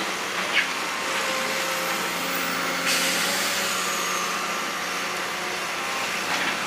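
Heavy construction machinery running steadily: a diesel engine's hum with a steady whine over a broad hiss, which brightens about three seconds in.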